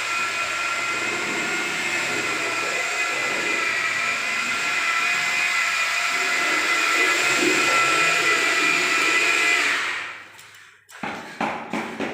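Electric power tool running steadily with a high whine, cutting off about ten seconds in, followed by a few sharp knocks.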